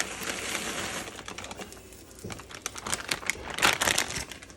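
Crinkling and rustling of food packaging, with a quick run of small clicks and crackles near the end, as the ingredients are tipped into the pot.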